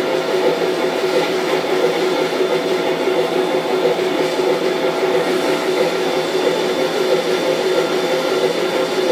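Steady whir and hum of a running O scale model train, its motor and wheels turning at an even speed on the track, with no change in pitch or loudness.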